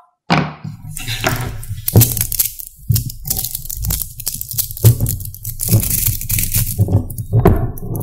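Small magnetic balls clicking and grinding against one another as hands squeeze and pull apart a large ball-magnet sculpture: a dense, irregular run of sharp clicks, starting a moment after a brief quiet gap.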